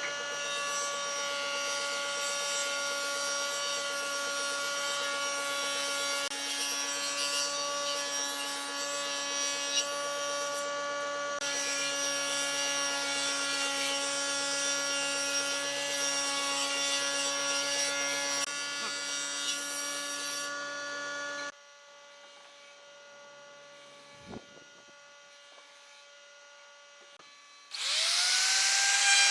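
Electric power tool running steadily while working wood, its motor hum under a rasping layer, cutting off abruptly about three-quarters of the way through. A single knock follows, and near the end a motor spins up with a rising whine.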